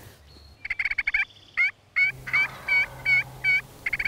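Wild turkey calling: a quick run of short notes, then a series of about four loud, evenly spaced yelps, and another quick run near the end.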